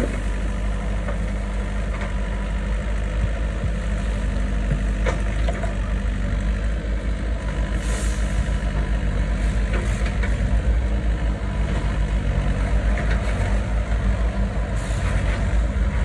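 Doosan excavator's diesel engine running at work, a steady low rumble with a fast pulsing throb, and a brief hiss about eight seconds in.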